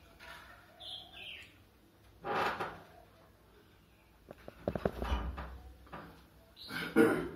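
Handling noise from the camera being moved: a cluster of quick knocks and rustles with a low rumble about five seconds in, among a few other short rustling bursts.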